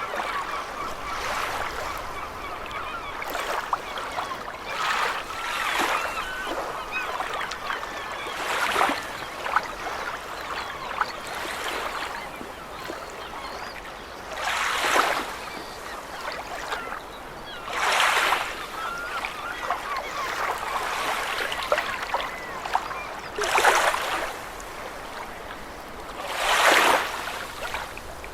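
Seagulls calling over the sea, with a steady wash of water and waves surging and breaking every few seconds.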